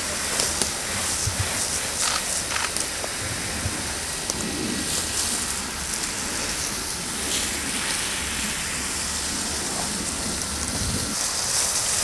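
Fire hose nozzle spraying a water jet onto smouldering forest undergrowth: a steady hiss of spray and water falling on the brush, dousing a flare-up during cooling work after a forest fire.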